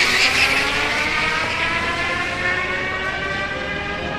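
Tesla electric drive unit of a race car whining under full acceleration, the whine with its overtones climbing steadily in pitch and slowly fading as the car pulls away.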